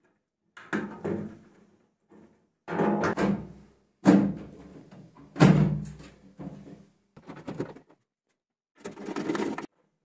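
Knocks and clatter of a washing machine's sheet-metal casing and plastic parts being handled during reassembly, in separate bursts with the loudest thuds about four and five and a half seconds in.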